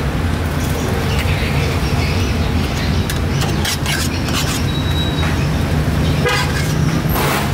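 Street traffic: a steady low engine rumble, with a short horn toot about six seconds in and a brief noisy burst near the end.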